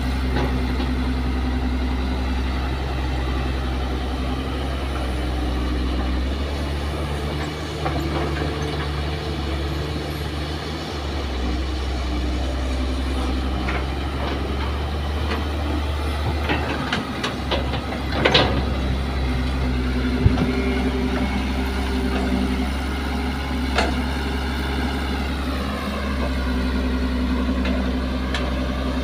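Kobelco SK200 hydraulic excavator's diesel engine running steadily under load as it digs and swings. There are a few sharp knocks and clatters past the middle, and the engine pitch drops near the end.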